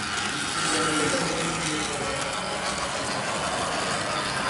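Steady hubbub of a large hall, with faint voices talking in the background.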